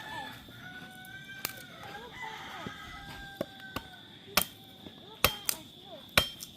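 A rooster crowing, a drawn-out call with gliding pitch in the first half, along with several sharp knocks that get louder in the second half.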